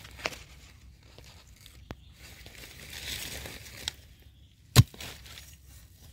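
Rustling and crackling of dry leaves and soil being disturbed, with scattered small clicks and one sharp, louder knock about five seconds in.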